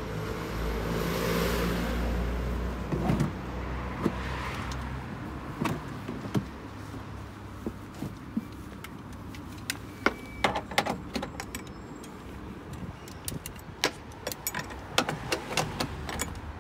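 A steady low hum for the first few seconds, then a run of sharp metallic clicks and clacks as wheelchair tie-down retractor clamps are latched onto the floor anchor points and their straps and buckles are handled.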